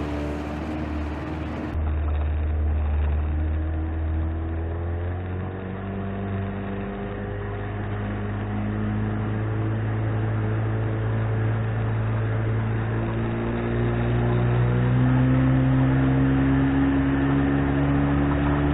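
1997 Johnson 25 hp two-stroke tiller outboard running at speed under way. It is a steady engine drone whose pitch slowly climbs, and it grows louder about fourteen seconds in.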